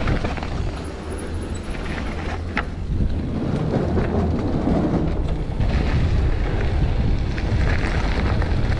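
Wind buffeting the microphone over the rumble of a mountain bike descending a dry dirt and gravel trail, with tyres rolling and the bike rattling and clicking over bumps.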